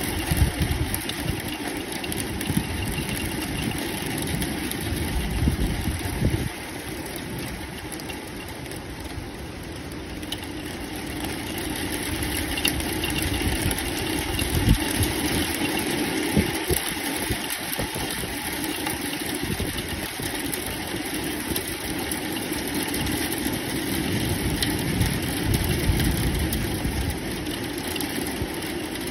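Thunderstorm: a steady hiss of rain with a low, shifting rumble underneath that eases after about six seconds and builds again from about twelve seconds.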